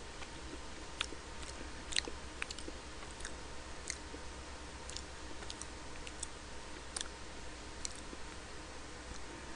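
A person chewing a diet lunch of chicken breast and salad, with about a dozen small sharp clicks scattered through it, a second or less apart.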